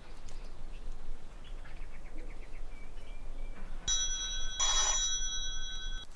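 Faint bird chirps, then a steady ringing tone of several pitches that starts about four seconds in and stops abruptly near the end, with a brief hissing burst under it.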